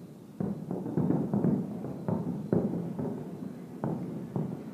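Distant fireworks shells bursting: a quick, irregular series of low booms, each with a rolling tail as it dies away.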